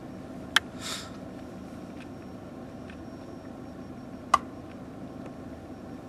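Two sharp clicks as a smartphone touchscreen is tapped, one about half a second in and one about four seconds in, with a soft brief rustle just after the first, over a low steady hum inside a car.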